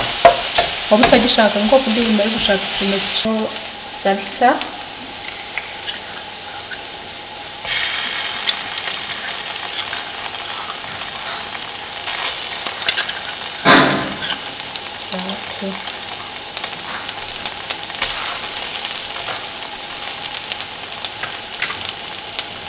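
Diced onion and green pepper sizzling in oil in a non-stick frying pan, stirred and scraped with a wooden spatula. The sizzle drops away for a few seconds around four seconds in and comes back, and there is one sharp knock about two-thirds of the way through.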